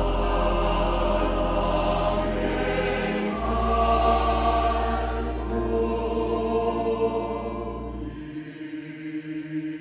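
A church choir sings a hymn with a string orchestra, holding long chords. The lowest bass drops out about eight and a half seconds in.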